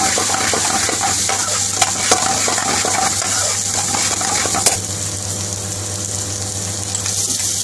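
Chopped onion and garlic-ginger paste frying in oil in a non-stick frying pan, stirred with a metal spatula that scrapes and clicks against the pan. About five seconds in the stirring stops and the sizzle goes on steadily.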